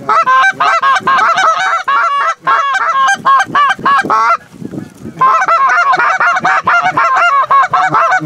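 Canada goose calls blown by hunters: rapid, loud honks and clucks, several a second, from more than one call, with a brief lull about halfway through.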